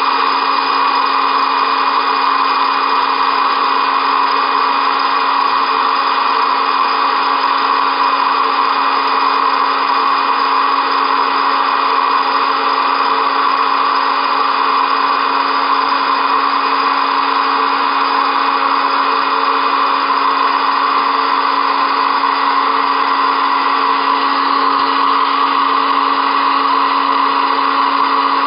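Electric hot-air popcorn maker's fan and heater running with a steady whir and a low hum, with no kernels popping.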